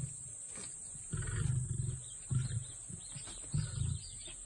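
Deep, low grunting calls from a large animal: three short grunts spaced a second or so apart.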